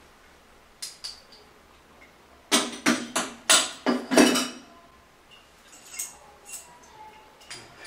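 Chrome-plated toilet flush valve parts and pipe sections clinking and clanking against each other as they are handled. There are two light clicks, then a quick run of about six loud metallic clanks that ring briefly, then a few softer clinks.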